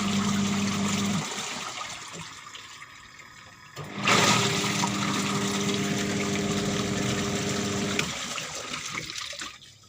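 LG washing machine running with water in the tub, its electric motor humming over churning water. It stops about a second in, starts again with a surge around four seconds in, and runs for about four seconds before stopping.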